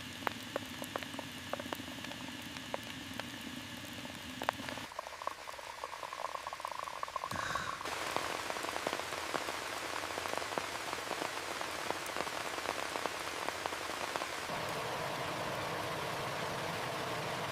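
Rain falling steadily, with many sharp drops ticking on a nearby surface. The sound of the rain changes abruptly a few times, about five, seven and fourteen seconds in.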